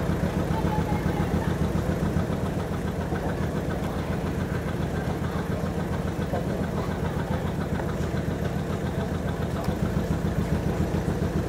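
A vehicle engine idling steadily with a fast, even throb.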